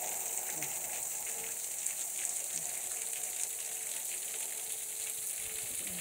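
Water trickling and splashing at a frozen waterfall: a steady fizzing hiss with small ticks.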